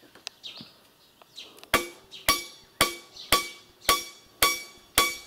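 Hammer blows ringing on metal, about two a second: seven sharp strikes, each with a short metallic ring, starting after a quiet first second and a half. The strikes are part of the work on a slipped swing crossbeam.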